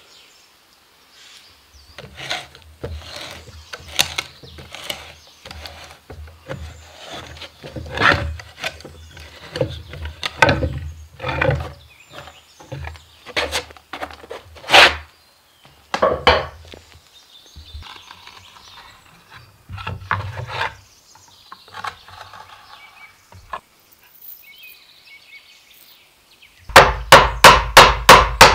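Hand tools working a wooden bellows board, making irregular wooden knocks and scraping. Near the end comes a fast, even run of loud hammer strikes as a small nail is driven through a leather valve flap into the board.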